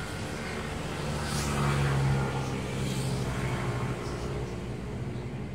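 Low engine hum of a passing motor vehicle, growing louder about one and a half seconds in and easing off after.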